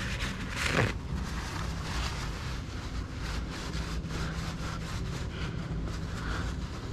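Wind rumbling on the microphone, with a brief louder rush a little over half a second in. Faint clicks and pops are scattered throughout, from a faulty camera microphone.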